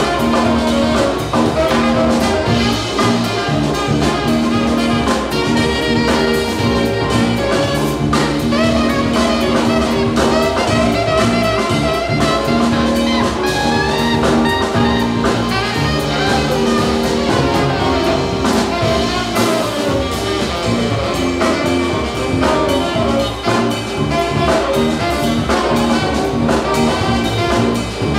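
Live jazz band playing: a saxophone carries the melody over a Nord Electro keyboard, bass guitar, electric guitar and drum kit, steadily throughout.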